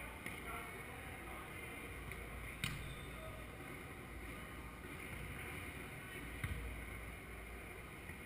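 Steady low rumble of a large hall, with a volleyball hit once with a sharp slap about two and a half seconds in and a lighter knock near the end.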